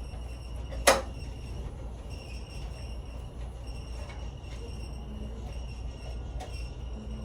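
A single sharp knock or clack about a second in, over a steady low room hum with faint small ticks afterwards.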